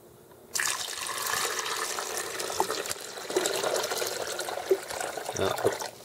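Water poured from a filter pitcher into a drip coffee maker's water tank: a steady splashing fill that starts about half a second in and stops shortly before the end.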